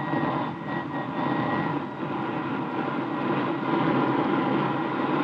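Radio-drama sound effect of a jet fighter's engine starting up: a steady rushing noise with a faint high whine in the first two seconds, swelling slightly as the engine catches.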